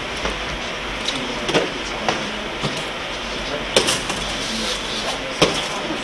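Sparring in a martial arts class: sharp slaps and thuds of kicks, strikes and feet landing, three of them louder than the rest, over a steady hiss.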